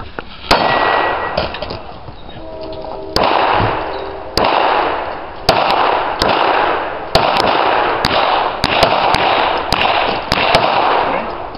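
Shots from a 9mm Glock 26 subcompact pistol, each crack followed by echo off the range berm. One shot, a pause of over two seconds, then about nine more at uneven gaps of roughly half a second to a second.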